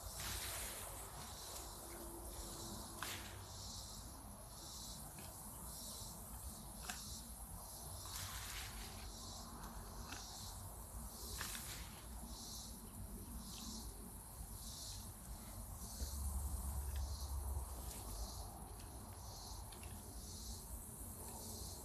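Evening insect chorus: high chirps pulsing about twice a second. A few short clicks and a low rumble run beneath it, the rumble loudest briefly about three-quarters of the way through.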